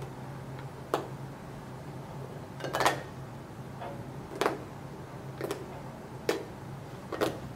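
A spiky rubber squishy toy being squeezed and handled, giving about six soft clicks at uneven intervals, the one about three seconds in longer than the rest, over a steady low room hum.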